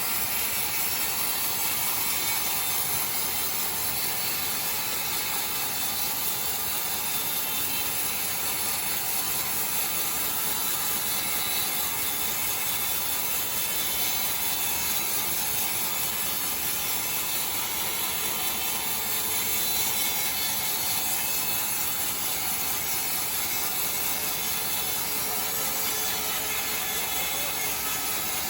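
Sawmill saw running steadily, cutting through timber with an even, hissing mechanical whir.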